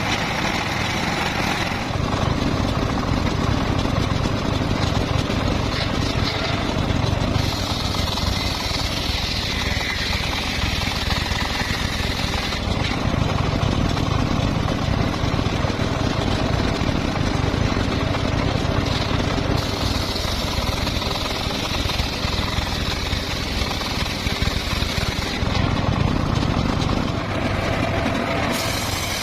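Large circular saw running continuously while ripping teak and mahogany timber, over a steady low rumble. A higher hiss comes and goes several times as the cut goes on.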